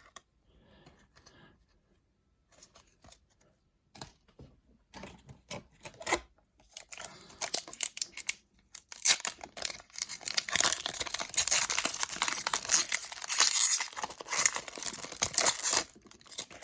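Hockey card pack's foil wrapper being torn open and crinkled. A few faint clicks first, then from about seven seconds in a dense, sustained crackling and tearing that ends just before the end.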